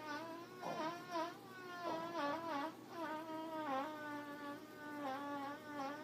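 A long, buzzy cartoon fart sound effect, its pitch wavering up and down and breaking briefly a few times.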